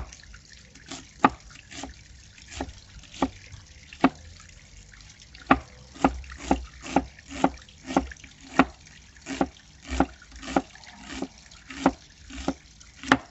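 A broad cleaver chopping an onion finely on a wooden cutting board: sharp knocks of the blade on the wood, roughly two a second, with a short pause about four seconds in.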